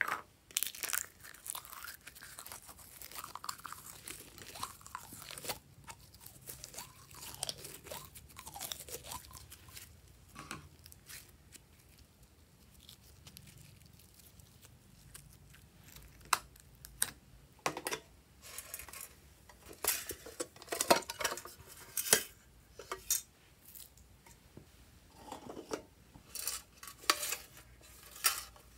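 Hands squeezing and kneading slime, with wet squishing and crackling and sharp clicks from plastic bottles and containers. The clicks and taps grow louder and more frequent in the second half.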